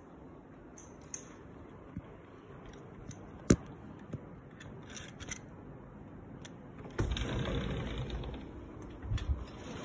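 Clicks and clacks of a door lock and handle, the sharpest about three and a half seconds in. Then a sliding door scrapes along its track for about a second and a half, followed by a short rattle.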